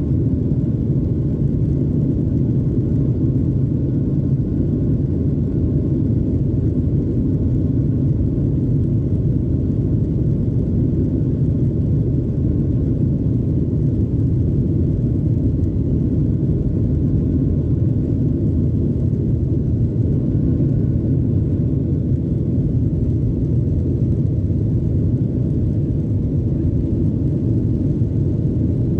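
Steady low rumble inside the cabin of a Boeing 737-900 taxiing, its CFM56-7B engines running at low taxi thrust with no spool-up.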